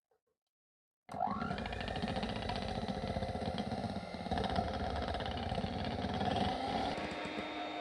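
Electric kitchen mixer switched on about a second in, its motor spinning up with a brief rising whine, then running steadily with a whir and rumble.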